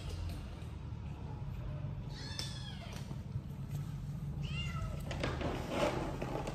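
Kittens mewing: two short, high mews that fall in pitch, about two seconds in and again about four and a half seconds in. A brief scratchy noise follows near the end.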